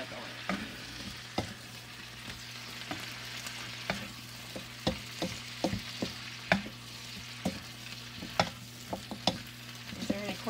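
Vegetables, broccoli and carrots among them, sizzling in hot oil in an electric wok while a utensil stirs them, with irregular clicks and scrapes against the pan over the steady frying hiss.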